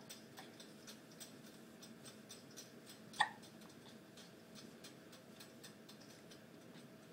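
A baby hiccups once, about three seconds in: a single short, sharp hiccup. Faint, quick ticking runs underneath.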